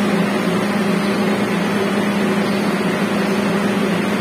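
Steady machine hum with a constant low-pitched tone over an even noise.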